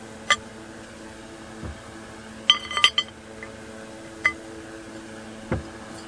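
Metal parts of a backhoe's hydraulic control valve assembly clinking as it is taken apart by hand: a few sharp clinks with short ringing, bunched near the middle, and a couple of soft thuds, over a steady low hum.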